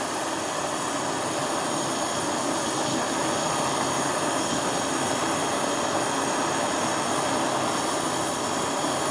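Gas soldering torch flame roaring steadily while heating a large silver buckle for soldering.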